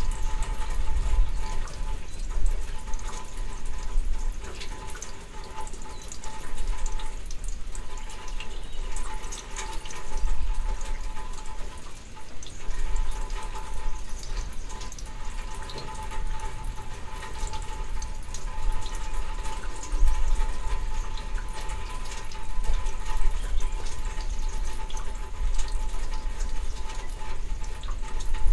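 Steady rain falling during a summer thunderstorm, with many close drops ticking and a low rumble that rises and falls. A faint steady hum runs underneath.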